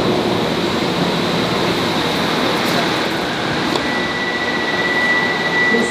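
Bombardier M5000 tram at the platform, a steady rumble of its running gear and equipment. About four seconds in, a steady high beep starts: the tram's door tone as the doors stand open for boarding.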